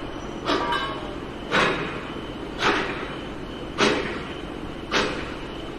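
Demolition work: heavy blows struck at an even pace, about one a second, five in all, each with a short ringing tail, over a steady low rumble.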